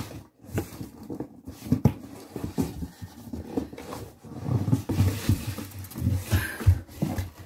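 Cardboard box flaps and packing material rustling, with irregular knocks and bumps as hands dig into the box to unpack a heavy crate.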